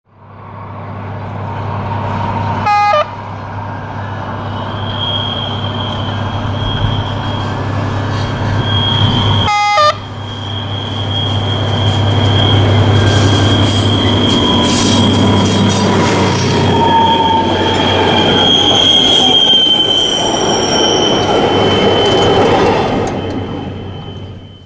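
ÖBB class 2143 diesel-hydraulic locomotive working hard as it hauls a passenger train past, its diesel engine's low drone swelling as it comes close and fading near the end. Two short horn blasts sound, about three and ten seconds in. A steady high whine rides over the engine from about five seconds on.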